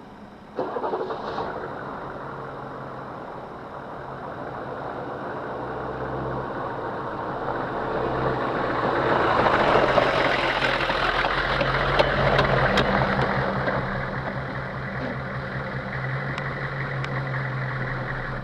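Hummer H1 engine catching about half a second in and running, louder around the middle, with several sharp clicks heard over it in the second half: the weird clicking the owner is trying to show.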